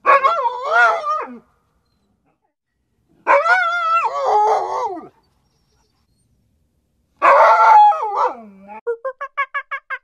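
A dog howling: three long howls whose pitch wavers up and down. Near the end, a fast run of short, evenly spaced calls starts up, about five a second.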